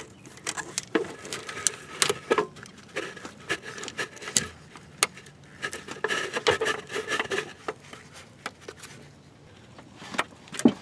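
Scattered clicks, knocks and scraping of tools and parts being handled while getting ready to drain a car's engine coolant, with no steady machine sound.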